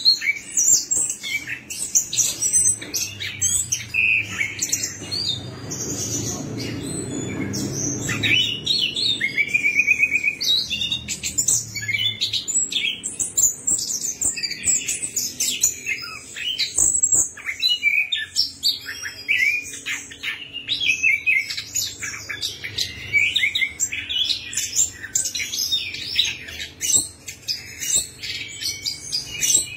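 Orange-headed thrush (anis kembang) singing a fast, varied song of chirps, whistles and trills, almost without pause.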